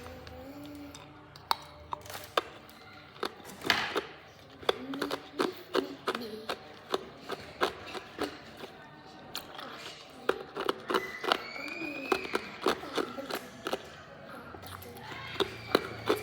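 Hard ice being bitten and chewed close to the microphone: a run of sharp, irregular crunches and cracks, a few every second.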